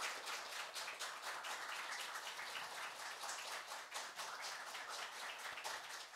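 Audience clapping, slowly fading out.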